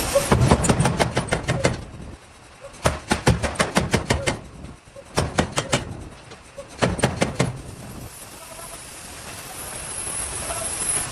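Runs of rapid sharp knocks, about six a second, in several bursts with short pauses between. A steady hiss builds in the background toward the end.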